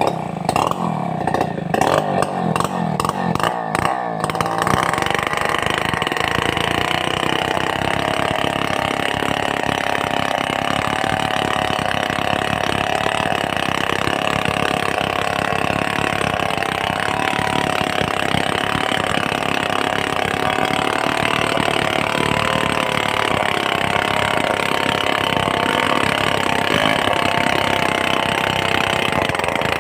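Stihl 070 two-stroke chainsaw running, uneven and pulsing for the first few seconds, then held steady at high revs from about four seconds in.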